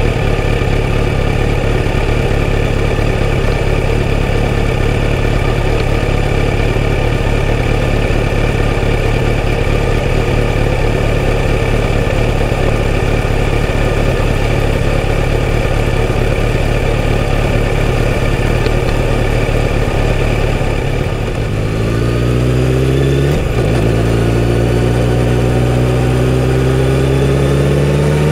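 Kawasaki Z900RS inline-four running through a full-system exhaust, holding steady revs at low speed. About three-quarters of the way through it pulls away: the revs rise, break briefly for a gear change, then climb again.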